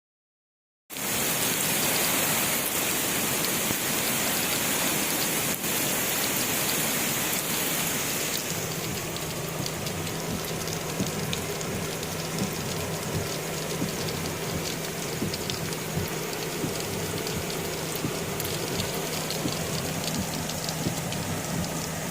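Heavy rain pouring steadily, with scattered drop ticks, starting abruptly about a second in. From about a third of the way in, a steady low hum runs underneath.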